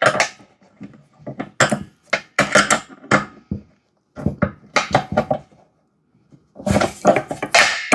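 Irregular metal clanks and knocks from handling the steel-tank air compressor and its parts during assembly, with a longer clattering stretch near the end.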